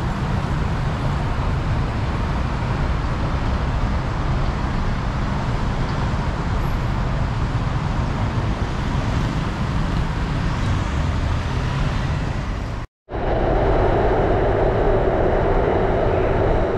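Steady city road-traffic noise with a low rumble, from the expressway and streets below the elevated Skytrain line. About thirteen seconds in it cuts off abruptly, and the steady noise inside a BTS Skytrain car follows, slightly louder.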